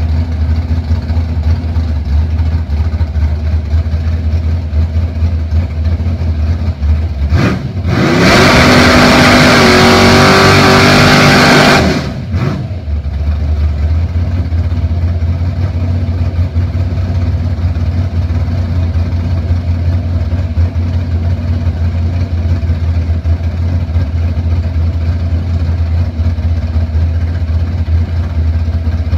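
Chevrolet Monte Carlo drag car's engine idling loudly. About eight seconds in it revs hard with rising pitch for about four seconds as the rear Hoosier slicks spin in a burnout, then drops back to a steady idle.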